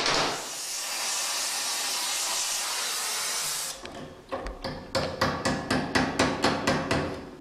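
A gas welding torch hisses steadily and cuts off suddenly about three and a half seconds in. Then a hand hammer strikes a red-hot low-carbon steel rose petal clamped in a vise, in quick ringing blows, about four a second.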